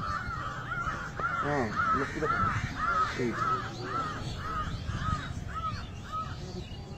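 A bird calling over and over at a steady pace, about two short arched calls a second, growing fainter near the end, with faint low voices now and then.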